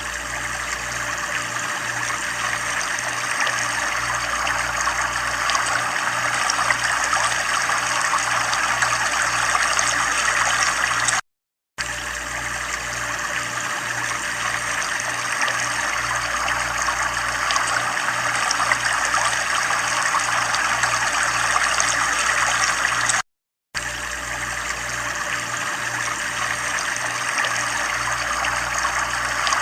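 Water running steadily, with a faint low pulsing hum underneath. It cuts out to silence for about half a second twice, about 11 and 23 seconds in.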